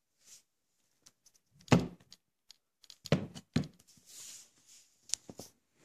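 Handling noises: a few knocks and clicks, the loudest about two seconds in and two more a second or so later, then a brief rustle and a sharp click near the end.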